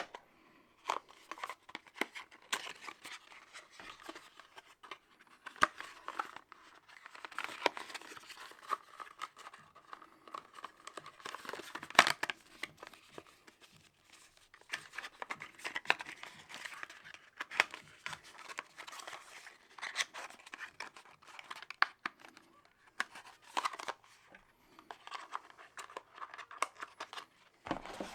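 Product packaging being handled and opened by hand: paper and plastic rustling, crinkling and tearing, with many small clicks and knocks and one sharper knock about twelve seconds in.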